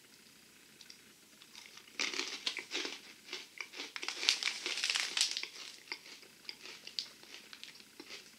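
Foil-lined plastic snack bag crinkling as it is handled. It starts about two seconds in with a dense run of crackles and thins out into scattered small crackles.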